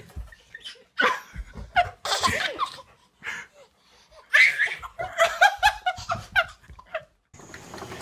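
Bursts of happy laughter from a baby and a woman, in short repeated pulses, the longest run about four seconds in.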